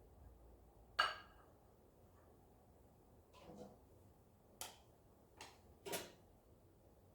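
Kitchenware being handled: one sharp, ringing clink about a second in, then a soft scrape and three lighter clicks and knocks.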